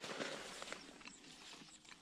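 Rustling and crackling of grass and leafy weeds with soft, scattered clicks, as someone moves about in low vegetation and handles a fabric camera bag.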